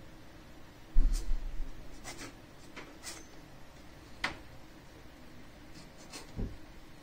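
Hands working a fiber optic cable with cutting and stripping tools: scattered short clicks and scrapes. There is a loud low bump about a second in.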